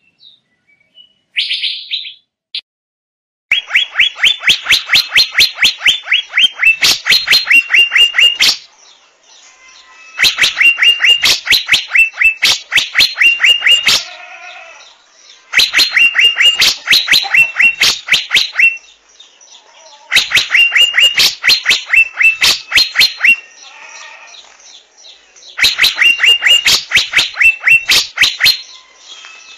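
Asian fairy-bluebird calling in repeated bouts of rapid, sharp notes, about five a second, each bout lasting a few seconds with short pauses between, five bouts in all after a quiet first few seconds.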